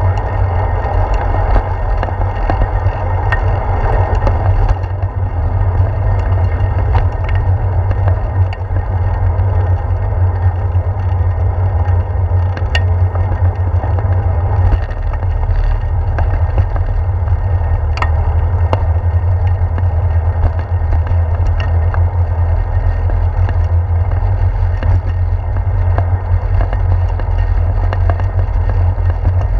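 Bicycle riding recorded from a handlebar-mounted GoPro Hero 4: a steady low rumble of wind and road vibration with tyre noise on the pavement, and a few sharp clicks and knocks as the bike rolls onto a wooden bridge and boardwalk.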